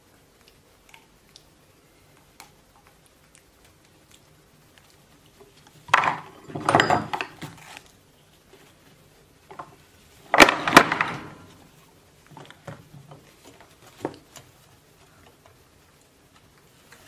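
Cosmetic bottles and plastic tubes clattering and knocking on a wooden dressing table as a baby monkey handles and moves among them. Two louder clatters come about six and ten seconds in, with light taps between.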